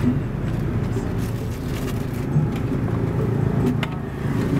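Low, steady rumble of a motor vehicle engine running close by, with a couple of light clicks of metal tongs against a steel tray.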